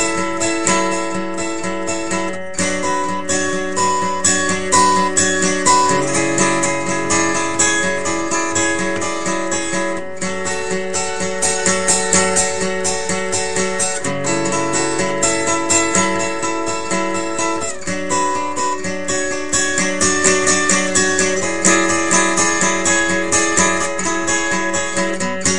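Acoustic guitar with a capo played solo, notes plucked in quick succession over ringing chords, with a higher melody line on top.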